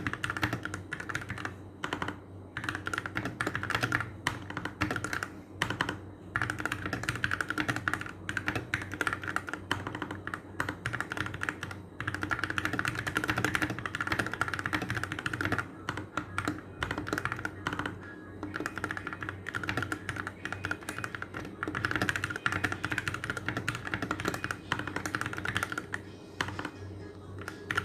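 Keychron K14 mechanical keyboard being typed on: rapid, irregular key clicks that thin out near the end, over background music.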